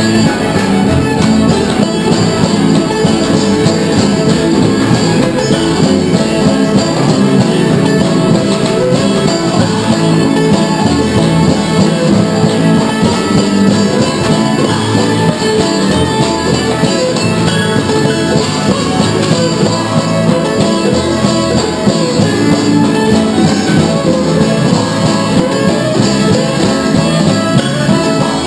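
Live string band playing a continuous tune on fiddle, banjo and upright bass.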